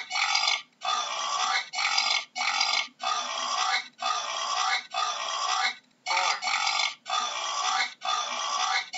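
A boar grunting over and over: about a dozen rough, noisy grunts, each half a second to a second long, one after another with short breaks and a slightly longer pause about six seconds in.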